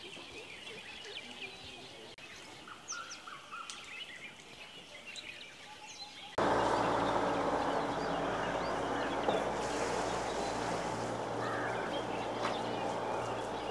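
Small birds chirping over a quiet outdoor background. About six seconds in, a louder steady rushing noise with a low hum starts suddenly and runs on under the chirps.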